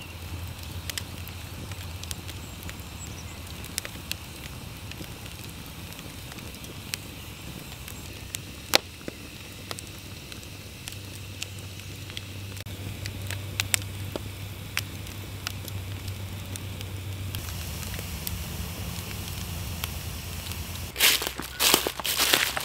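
Wood campfire crackling, with sporadic sharp pops, one louder about nine seconds in. Near the end, loud rustling and crunching of dry leaf litter underfoot.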